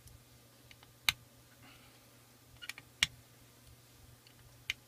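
A few sharp metallic clicks from a T-handle hex key being set into and turned in the barrel-clamp cap screws of a Cricket air rifle while they are torqued down in a crisscross pattern. The loudest clicks come about a second in and about three seconds in.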